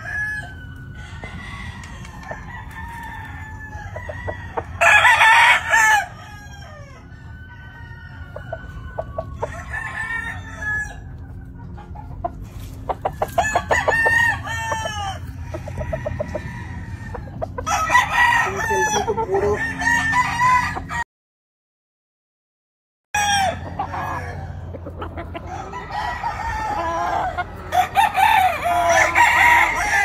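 Gamefowl roosters crowing again and again, several birds answering one another, with clucking between the crows over a low steady hum. The loudest crow comes about five seconds in, and the sound cuts out completely for about two seconds two-thirds of the way through.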